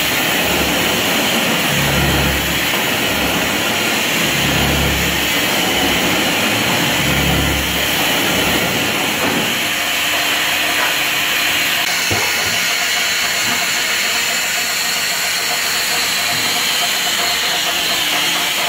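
Benelli 315-ton mechanical press running, with a steady machine hum and a loud air hiss. Low thuds come about every two and a half seconds in the first half, then give way to a steadier low hum, with one sharp click about twelve seconds in.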